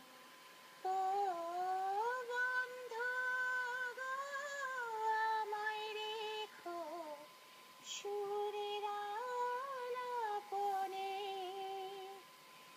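A woman singing a Bengali song solo, without accompaniment, in long held notes with slight wavering ornaments and short breaths between phrases. A faint steady tone runs underneath.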